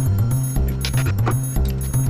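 Background music with a steady beat and a repeating bass line, with a few faint clinks of tools under it.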